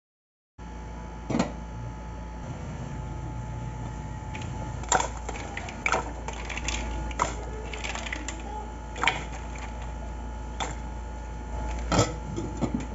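Irregular sharp clicks and clatters of mussel shells knocking in a stainless steel pot of water, over a steady hum. Just after 12 seconds comes the loudest clink, as a glass lid is set on the pot, followed by a few smaller rattles.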